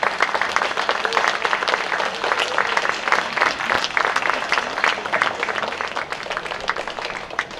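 Audience applauding: a dense, irregular clapping that starts as the song ends and thins out near the end.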